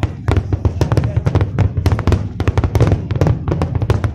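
Fireworks display: a rapid, dense run of bangs and crackles, many a second, over a continuous low rumble.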